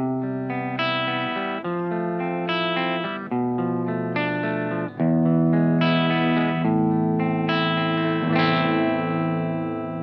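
Tokai LS-129 Love Rock electric guitar with twin PAF-style humbuckers, played with a clean amp tone. Picked chords ring out and change about once a second, with a louder, harder-picked chord about five seconds in.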